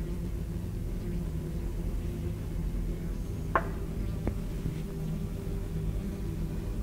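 A low, steady hum of several held tones, with two short clicks a little past halfway, the first the louder.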